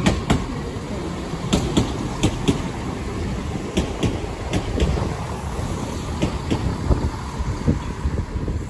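Northern Class 170 Turbostar diesel multiple unit passing over the tracks: a steady low rumble under clicks from its wheels over rail joints and pointwork, often in quick pairs a fifth of a second apart.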